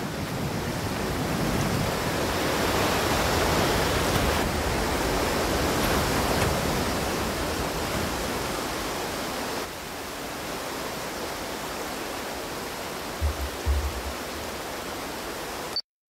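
Whitewater and a waterfall rushing: a dense, steady hiss of water that shifts slightly just under ten seconds in. Two brief low thumps come near the end.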